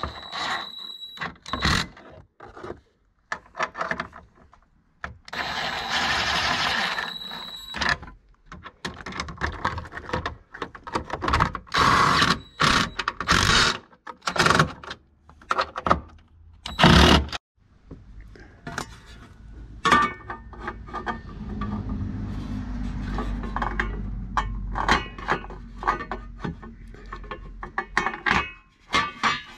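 Porter-Cable cordless drill-driver running in short bursts as it drives M6 bolts through an oak spacer board, with sharp clicks and clatter of handling between runs. A low steady rumble runs through the last third.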